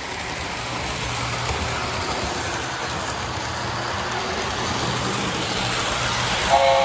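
Lionel American Fire and Rescue O-gauge train set running on plastic roadbed track, with a steady rumble of the locomotive's electric motor and wheels. Near the end the diesel locomotive's electronic horn sounds a chord.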